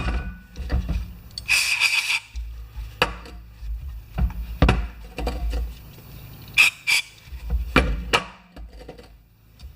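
Workshop handling noises while a lapped engine valve seat is wiped clean: a rag rubbing, a short hiss about two seconds in, and a scatter of sharp knocks and clicks from small parts and tools being handled.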